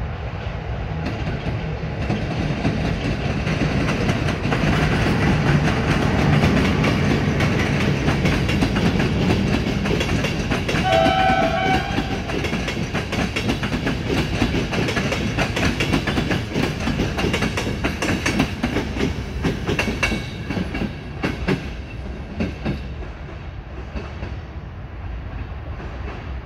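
A train passing close by: the rumble builds, a short horn blast sounds about eleven seconds in, and then a quick run of wheel clicks over the rail joints follows as the cars go past, fading toward the end.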